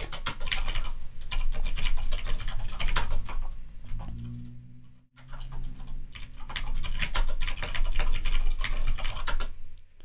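Typing on a computer keyboard: quick runs of keystrokes, with a short pause about five seconds in.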